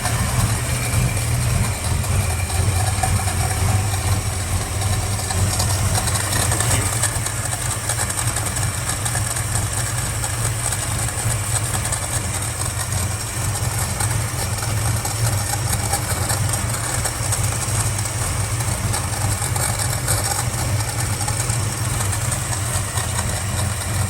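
Valiant Charger engine idling steadily, just refilled with fresh oil after an oil and filter change.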